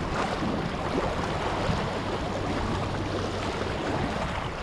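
Small waves lapping and splashing over shallow rocks, a steady wash of water noise.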